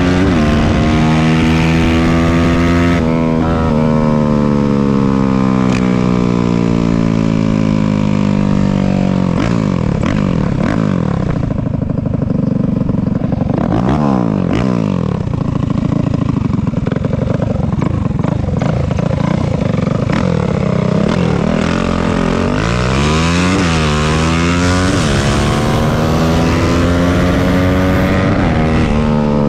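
Dirt bike engine running hard, its pitch climbing as it accelerates, dropping at a gear change about three seconds in, then falling away and rising again several times. Around the middle and near three quarters through, a second engine's pitch crosses the first.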